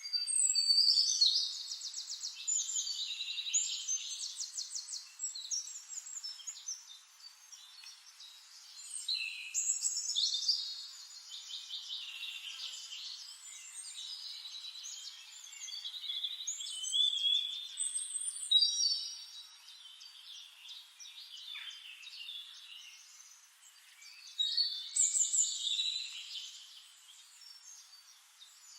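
Songbirds singing in repeated bouts of fast, high trills and chirps, with quieter gaps between the bouts.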